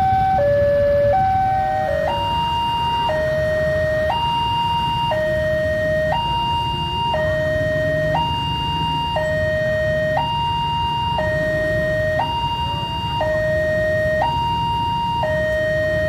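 Railway level-crossing warning alarm sounding an electronic two-tone signal that alternates between a higher and a lower tone. About two seconds in it changes to a different, slower tone pair, switching about once a second, as another crossing's alarm takes over.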